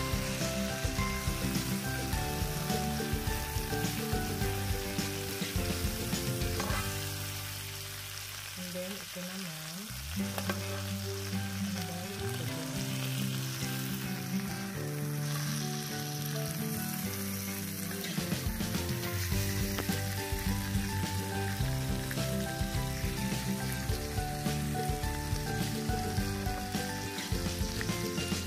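Chicken leg quarters sizzling steadily in their own rendered fat and a little oil in a nonstick grill pan over low heat. The sizzle eases briefly about eight seconds in.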